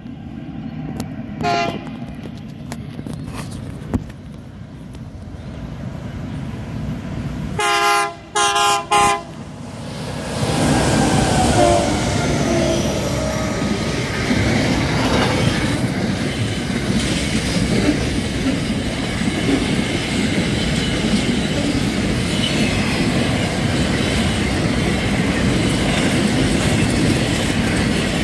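Freight train diesel locomotive horn: one short blast, then three short blasts in quick succession about eight seconds in. The locomotives and their wagons then roll past with a steady rumble and wheel clatter on the rails, with a brief wheel squeal.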